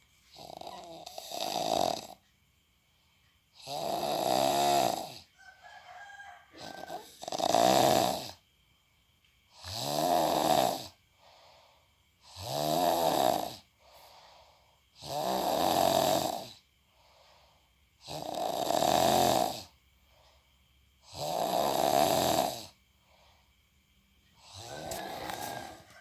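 A person snoring loudly: one long snore about every three seconds, about nine in all, with quiet breaths between.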